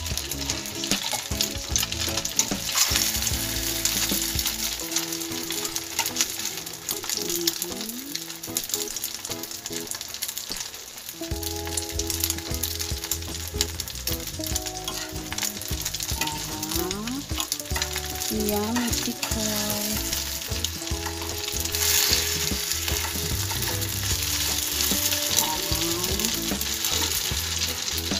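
Egg-coated slices of tikoy (sticky rice cake) frying in shallow oil in a small pan: a steady crackling sizzle as the slices are turned with tongs.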